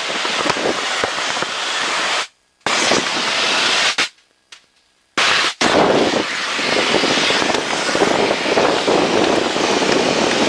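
Loud, crackling wind blast buffeting through the Long-EZ's cockpit while its canopy is open in flight at about 150 mph. The sound cuts out briefly twice in the first half.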